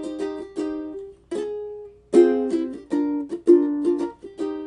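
Ukulele chords strummed in an instrumental passage. The strumming stops briefly about two seconds in, then resumes more loudly.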